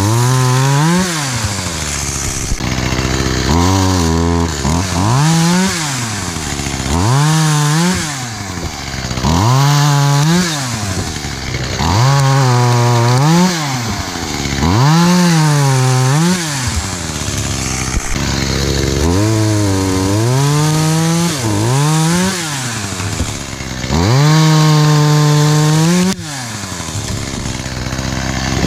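Echo CS-271T top-handle chainsaw's small two-stroke engine revved up to cut and dropped back to idle, over and over, about a dozen times, as it bucks small limbs into short pieces.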